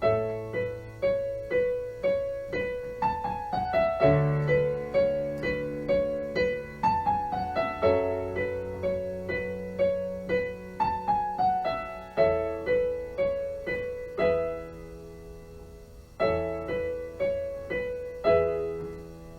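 Electric piano playing a solo instrumental passage: evenly paced struck notes and chords, each dying away, with several short runs falling in pitch.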